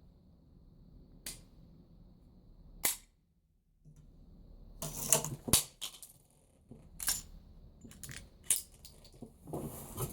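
Glock 43 9mm pistol fired in single shots, about half a dozen at uneven intervals. The loudest two come about half a second apart near the middle.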